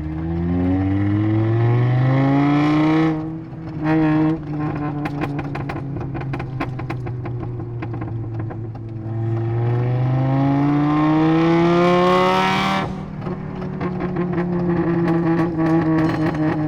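Mk6 VW Golf's 2.5-litre five-cylinder engine pulling hard twice, its pitch climbing with the revs. Each pull ends in a sudden lift-off followed by a string of exhaust crackles and pops from the new pops-and-crackles tune. Heard from inside the cabin with the windows up.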